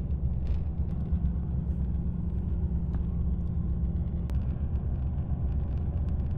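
Steady low rumble of a moving coach bus heard from inside the cabin: engine hum and road noise, with a couple of faint ticks around the middle.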